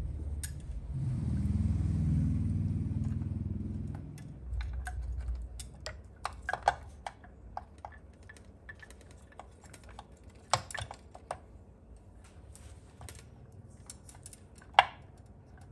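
Small hard parts being handled during model assembly: a scattered run of light clicks and taps, with one sharp click near the end. A low rumble fills the first few seconds.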